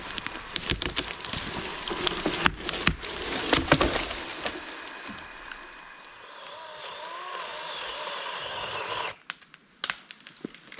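Felled larch tree going over: wood cracking and splintering with branches snapping, a rapid run of sharp cracks loudest two to four seconds in, then dying away into quieter rustling before the sound cuts off sharply near the end.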